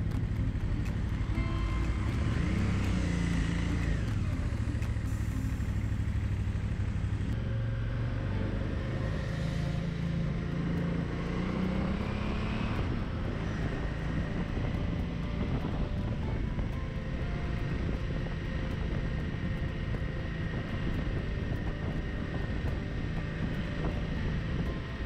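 KTM 990 Adventure's V-twin engine running as the motorcycle rides through town traffic, its pitch rising twice as it accelerates.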